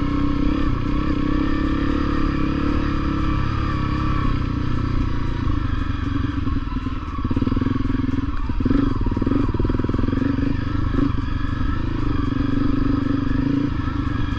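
Honda CRF250L's single-cylinder four-stroke engine running as the bike is ridden, its pitch wavering a little; it eases off briefly about halfway through, then picks up again.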